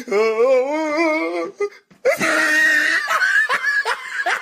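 A meme sound-effect clip: a voice-like wail with a wavering pitch for about a second and a half, then, after a short break, a run of short rising yelps over a noisy background.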